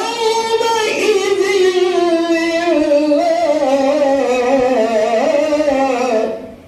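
A man reciting the Quran in melodic tajweed style (qira'at): one long held phrase, the voice wavering in ornaments and sliding slowly down in pitch before it fades out about six seconds in.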